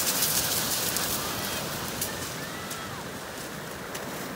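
A group running barefoot down a pebble beach, the stones crunching and clattering underfoot, with surf washing in behind. The crunching is loudest at first and fades as the runners move off toward the water.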